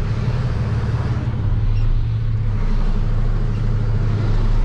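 Delivery truck's engine running steadily with a constant low drone, heard from inside the cab.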